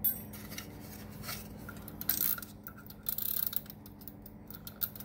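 Clicks, taps and a brief rustle of small objects being handled on a kitchen counter while a plastic wind-up kitchen timer is picked up, with a quick run of clicks about three seconds in.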